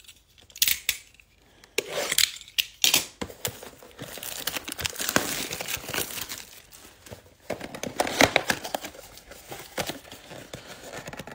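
Plastic shrink wrap being torn and crumpled off a Bowman baseball card blaster box, a dense crinkling that sets in about three seconds in after a few light knocks. The cardboard box is handled and opened near the end.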